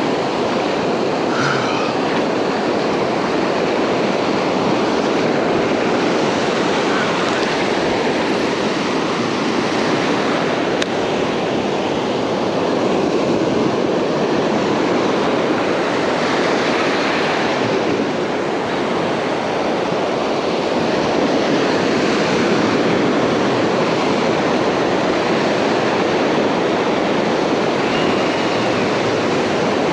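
Ocean surf breaking and washing up a sandy beach in shallow foam, a steady rush of water.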